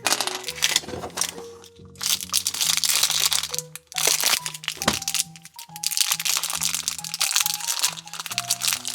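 Plastic toy wrapper crinkling and crackling in several handling bouts as it is torn open and peeled away, over steady background music.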